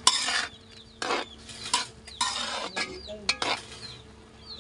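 Metal spatula scraping against a metal wok, stir-frying squid strips in oyster sauce, with a sizzle under it. There are about six separate scrapes, the first the loudest.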